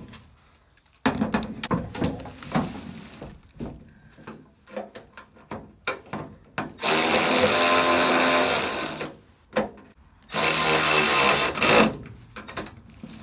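Cordless electric ratchet running in two bursts of about two seconds and a second and a half in the second half, driving down the bolts that fasten a caster to a steel tool cart. Before them come scattered light clicks and knocks as the tool and hardware are handled.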